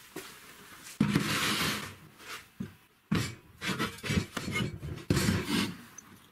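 An old car shock absorber and a steel channel being set down and handled on a plywood workbench: a scraping slide of metal on wood about a second in, then several knocks and clunks with short rubbing between them.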